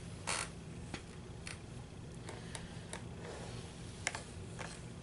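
Handling noise from hand-sewing a knitted seam: fingers, yarn and a metal yarn needle rubbing and catching on the knit fabric close to the microphone, heard as a few short scratchy rustles and ticks, the loudest about a third of a second in. A low steady hum runs underneath.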